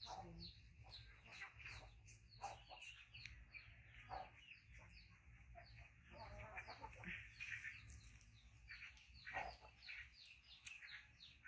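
A small bird chirping over and over in short, high, falling chirps, about three a second, with faint scratching and clicks beneath.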